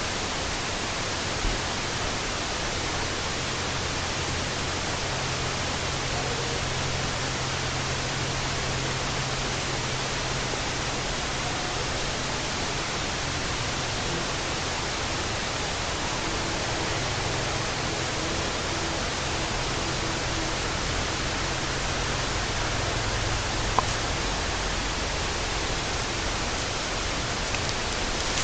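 Steady, even hiss that does not change, with a faint low hum under it and a couple of small clicks.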